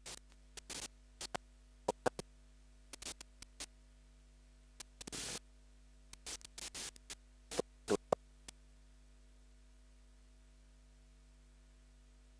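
Scattered light clicks and knocks, with one short scrape about five seconds in, from hands fitting an asbestos liner into the crucible of a dental centrifugal casting machine. A steady faint hum runs underneath, and the clicks stop after about eight seconds.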